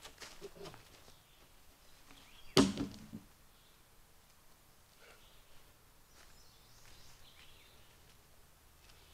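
A long pine log dropped into place, landing with one heavy thud about two and a half seconds in. Faint footsteps on leaf litter around it.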